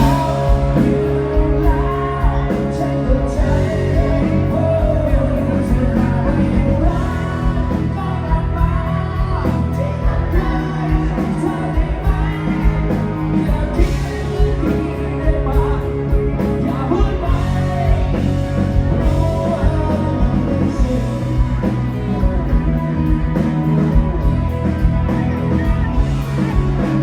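Live rock band playing with a lead singer: a steady drum beat, held bass notes and sung vocals.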